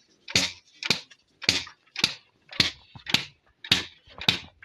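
Traditional carding bow being struck in a steady rhythm to fluff loose fibre: sharp strokes about twice a second, each with a brief ring, eight or so in a row.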